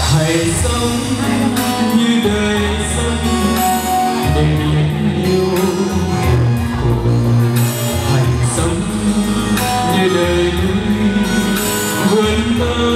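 Male vocalist singing a Vietnamese ballad live into a microphone over instrumental accompaniment.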